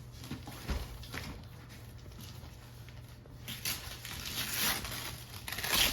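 Gift wrapping paper rustling and tearing as a present is unwrapped, in uneven bursts that get louder from about halfway through. A soft thump comes about a second in.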